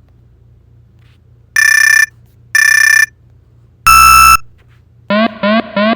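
Electronic alarm sound effects: two clean half-second beeps, then a louder, buzzier, lower beep, then about five seconds in a fast repeating rising whoop, about three a second.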